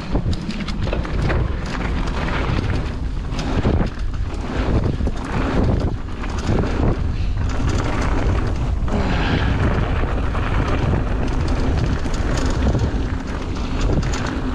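Ragley Big Al mountain bike descending a rough dirt trail at speed: wind buffeting the microphone and tyres rolling over gravel, with a constant clattering rattle from the bike. The rider says it sounds like something's broken and thinks a foam insert would cure it.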